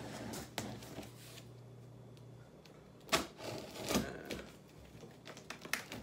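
A hand tool scraping and slicing along the packing tape on the seam of a cardboard box, in several separate strokes. The sharpest is about three seconds in, with more scraping and cardboard handling near the end.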